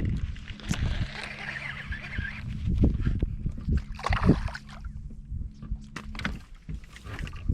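A small boat's motor giving a steady low hum that cuts off about six seconds in, with low thumps and knocks throughout.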